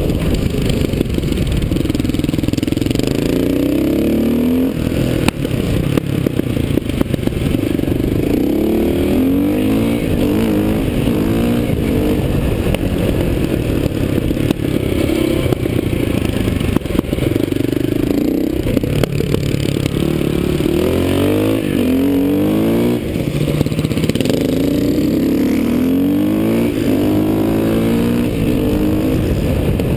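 Motorcycle engine heard from on board, running hard round a tight track: the revs climb in repeated rising sweeps and fall back between them, over a constant rush of noise.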